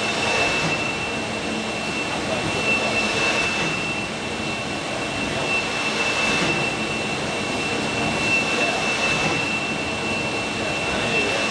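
High-speed top-loader pick-and-place robot cycling: a steady machine hiss with a thin, constant high whine, swelling about every three seconds as the gripper moves rows of products.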